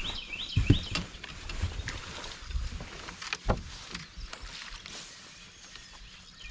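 Thumps and knocks on a bass boat's deck, with some water noise, as a bass is hooked and brought to the boat. The loudest thump comes just under a second in, and another comes about three and a half seconds in.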